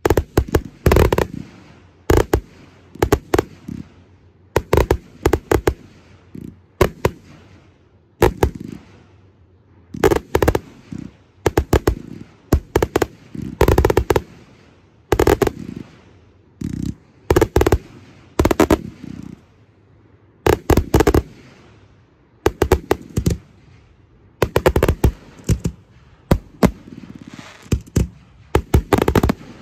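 Aerial fireworks display: shells bursting in loud sharp bangs, often two to four in quick succession, with a new cluster every second or two and some crackling between them.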